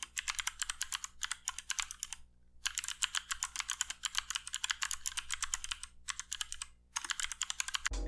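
Fast typing on a GMMK Compact mechanical keyboard with clicky Kailh Bronze speed switches and pudding keycaps: a rapid run of sharp key clicks, with a short pause a little over two seconds in and another just before seven seconds.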